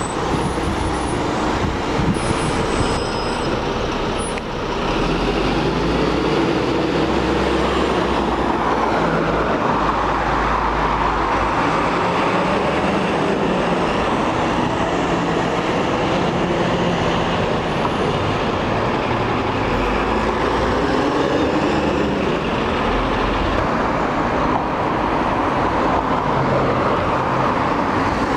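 Diesel single-deck buses running and pulling away, over steady traffic noise.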